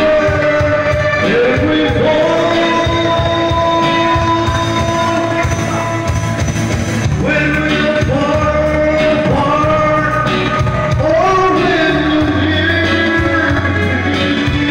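Live singing into a microphone over a karaoke backing track, with long held notes that scoop up into pitch and a steady bass line underneath.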